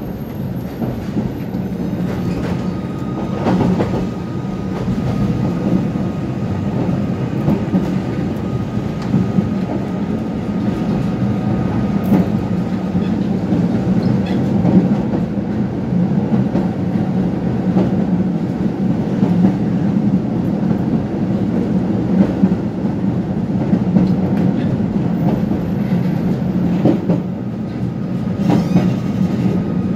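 Tatra-Yug K1M8 tram running along the track, heard from inside the passenger cabin: a steady rumble of wheels on rail with a few sharp clacks over the track. A thin steady whine comes in about two seconds in and lasts about ten seconds.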